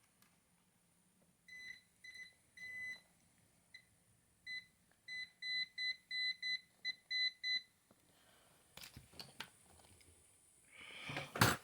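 Electronic beeping: three short beeps, then a quicker run of about ten, followed by light handling noise and a sharp click near the end.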